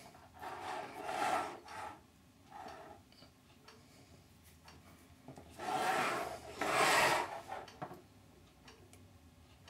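Faint rubbing and scraping from handling a hand-held acrylic diffusion sheet against the LED modules and their wiring. There are a few short noisy strokes, the two loudest about six and seven seconds in.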